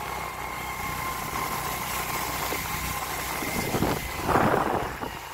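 Motorbike engine running steadily while being ridden along a wet road, with a thin steady whine over it. A brief louder burst of noise comes about four seconds in.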